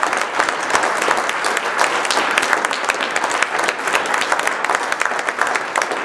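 Audience applauding: a long, steady round of clapping from a roomful of people.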